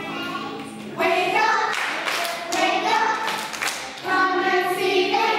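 A group of young children singing a song together, with hand claps along to it in the middle.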